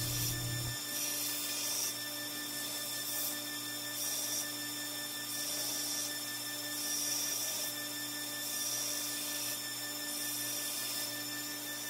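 Belt grinder running with a steady motor hum while a copper-and-steel laminated knife blade is ground on its flat platen. A high grinding hiss swells and fades in repeated passes of about a second, and a low rumble cuts out under a second in.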